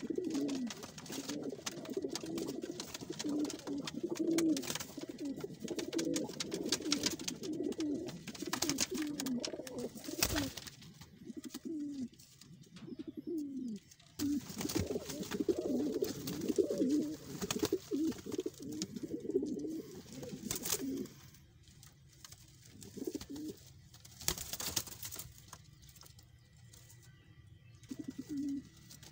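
A loft full of fancy domestic pigeons cooing over one another, with scattered clicks and scratches. The cooing is dense for about twenty seconds, then thins to a few single coos near the end.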